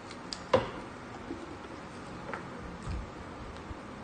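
Eating sounds close to the microphone: chewing and mouth noises with a few short clicks, the sharpest about half a second in, and a soft low thump near three seconds.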